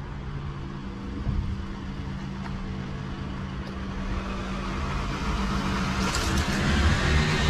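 A van driving along a paved road: a steady engine hum with tyre noise that grows louder over the last few seconds as it comes nearer.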